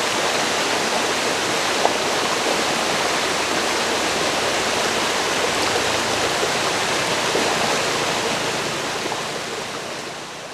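Forest river water rushing, a steady even hiss that fades out over the last two seconds or so.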